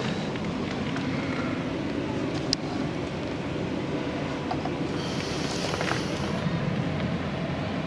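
A steady low mechanical hum, with a sharp click about two and a half seconds in and a brief hiss around five to six seconds in.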